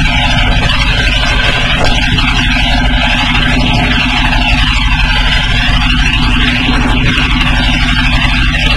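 Boat engine running steadily and loudly as the fishing boat travels, with a constant low drone under a broad hiss.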